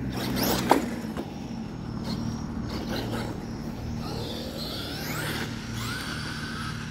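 Traxxas Maxx RC monster truck's brushless electric motor whining as it drives, its pitch sweeping up and down as the truck speeds up and slows, with a quick sweep in the first second and more rising and falling whine a few seconds later. A steady low hum runs underneath.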